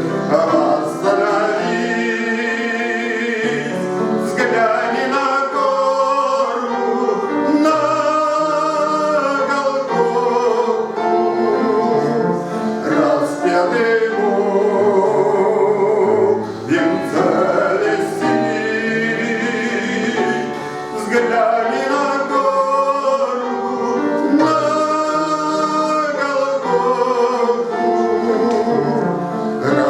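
A man singing a church hymn with vibrato, in long sung phrases over instrumental accompaniment.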